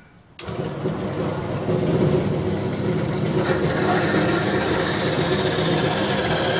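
Small horizontal metal-cutting bandsaw switched on about half a second in, its motor and band blade running steadily as the blade cuts through a wooden broom-handle dowel.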